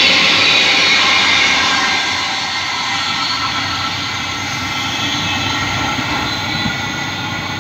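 Freight train of container wagons rolling past and moving away, its rumble fading over the first two seconds and then going on steadily at a distance, with a faint high ringing from the wheels on the rails.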